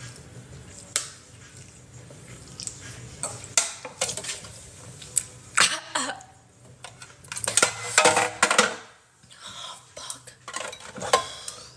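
Clinks and knocks of drink containers being handled, scattered sharp hits that come thickest from about the middle of the stretch, with a few short throat sounds in between.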